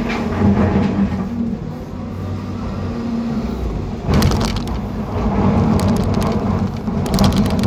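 John Deere 350G excavator's diesel engine running steadily under hydraulic load, heard from inside the cab. A sudden loud clank comes about four seconds in as the bucket goes back into the rip rap on the barge, and a run of rock clatter and scraping follows near the end.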